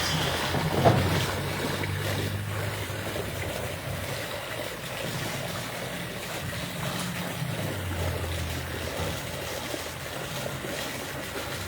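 Outdoor background noise with a low, steady motor hum that fades out about nine seconds in.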